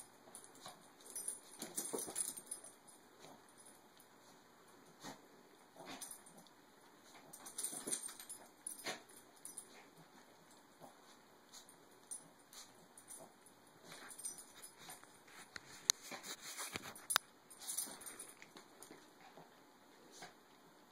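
Maltese dogs play-fighting, making short vocal noises in scattered bursts, with light clicks and scuffles in between.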